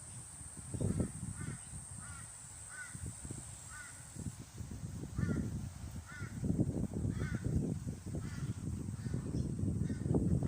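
A bird calling over and over in short repeated calls, over low rustling and knocking as hands work the oiled foam pre-filter back onto the mower's air filter element; the handling is loudest about a second in and through the second half.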